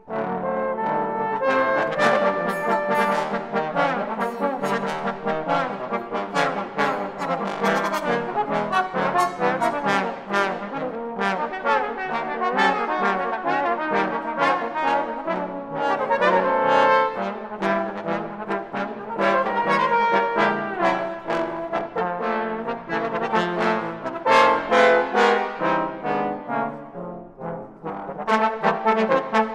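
Trombone ensemble playing together: several trombones sounding chords and a run of quick, crisply tongued notes.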